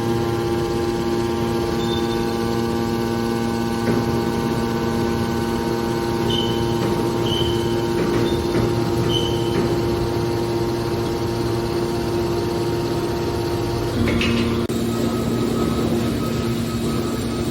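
Steady mechanical hum of a hydraulic baler's motor and pump unit, its tone changing about fourteen seconds in, with a few faint short high chirps midway.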